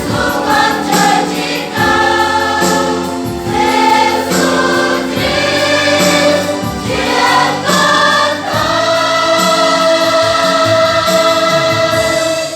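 Choir singing a Protestant hymn of praise to the Lamb, moving through several sung phrases and then holding one long final chord that cuts off at the end.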